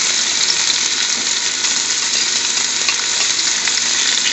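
Chopped garlic frying in hot vegetable oil in a pan: a steady sizzling hiss with small scattered crackles.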